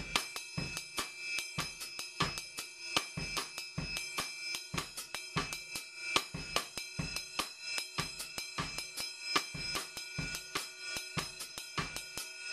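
Drum kit playing a 3-2 cascara pattern with the left hand playing 3-2 son clave over a steady bass drum and hi-hat foot ostinato, at 150 beats per minute. The pattern is even and unbroken, with cymbal ringing throughout.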